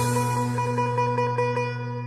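Harp music: plucked notes ringing over a held low chord.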